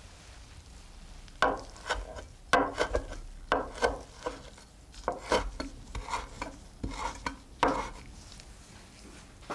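Chef's knife chopping fresh dill on a wooden board: a run of crisp, irregular knife strikes against the wood, about two or three a second, starting about a second and a half in and stopping near the end.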